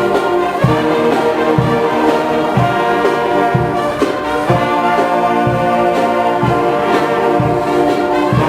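Marching band brass section playing a loud, sustained tune over a low drum beat of about one stroke a second.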